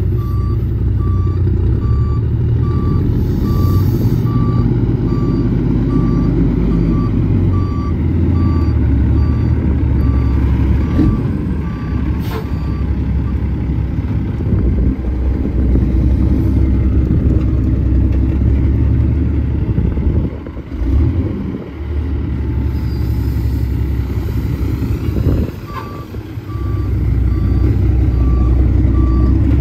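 Cummins ISX diesel of a fully loaded International ProStar dump truck running as the truck maneuvers, with a reversing alarm beeping at an even pace for the first twelve seconds or so, stopping, and starting again a few seconds before the end. The engine note dips briefly twice about two-thirds of the way through.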